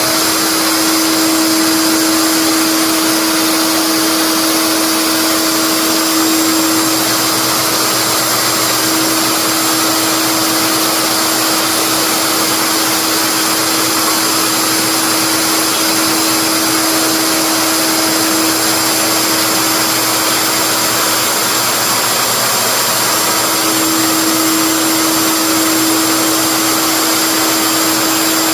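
Electric wood router running steadily at high speed, its motor whine holding one pitch with small dips in the tone.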